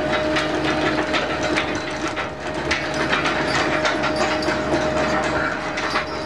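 Trawler's hauling machinery running with a steady whine while the trawl's chain ground gear comes in, with many quick clanks and rattles of chain and gear.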